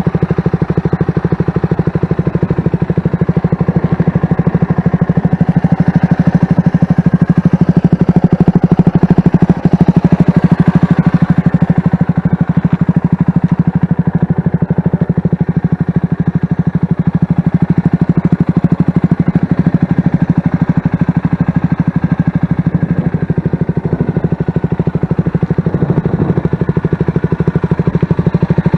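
CFMoto 300SS motorcycle's single-cylinder engine idling steadily, its exhaust beat fast and even.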